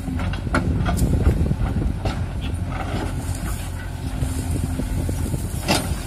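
Diesel engine of a JCB backhoe loader running and working harder as its loader arm lifts the bucket, over the idle of a tractor. There are several sharp knocks through the sound, the loudest near the end.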